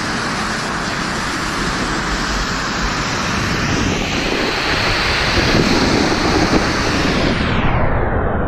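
Steady rushing wind noise on the microphone from a snowboarder riding down a slope, with the hiss of the board sliding over snow, growing louder about halfway through.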